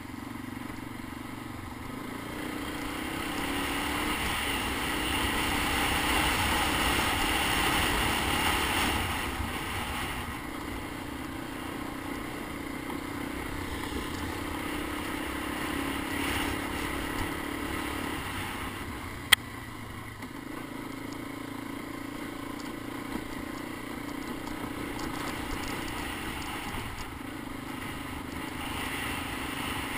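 Honda Big Red 250ES three-wheeler's single-cylinder four-stroke engine running under way, growing louder over the first several seconds, then easing back about nine seconds in to a steady cruise. A single sharp click about two-thirds of the way through.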